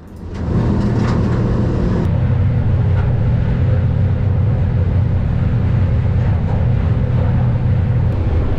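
Boat engine running steadily at speed, with water rushing along the aluminium hull and wind on the microphone at the bow. The sound comes in sharply within the first half second, then holds steady.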